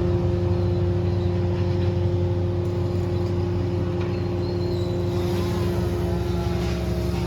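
A large engine running steadily, a constant low drone with a fixed hum.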